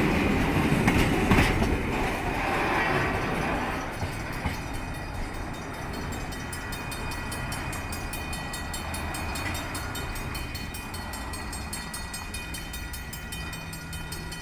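Freight train container wagons rumbling and clicking over the rails, fading over the first few seconds as the train moves away. A steady high-pitched ringing carries on after it.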